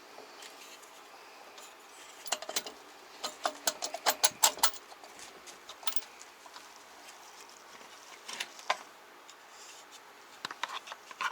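Metal parts and hand tools clinking and clicking as the cylinder head is lifted off a Jawa 638 motorcycle engine: a cluster of sharp clinks from about two seconds in to almost five seconds, a couple more a little past the middle, and more near the end.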